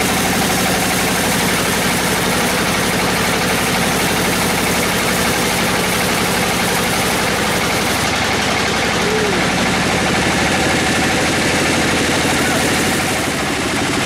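Sawmill band saw running steadily, its drive engine giving a fine even pulse, as a dense jamblang (Java plum) hardwood cant is pushed through the blade.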